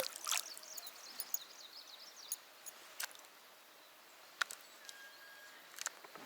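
Quiet outdoor background with a few scattered sharp clicks and taps from a spinning rod, reel and lure being handled.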